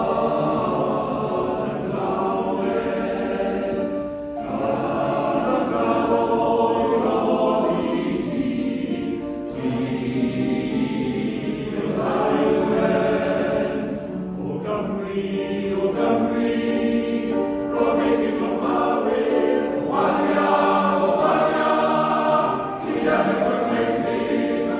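Male voice choir singing, its phrases breaking off briefly every few seconds.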